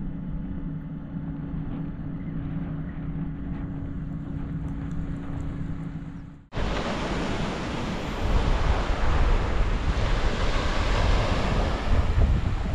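A steady engine hum with a low drone stops abruptly about six and a half seconds in. It gives way to louder surf and wind buffeting the microphone.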